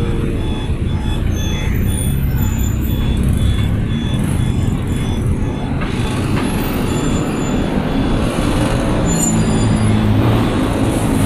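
Traffic on a city street: car engines and a bus's engine running close by in a steady low rumble, the engine note growing stronger in the last few seconds.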